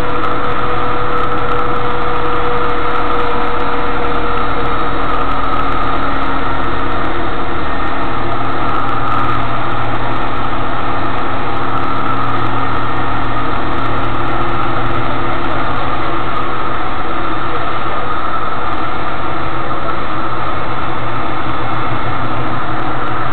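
Steady running noise heard inside a tram carriage: a continuous rumble with a hum from the drive, with no marked events.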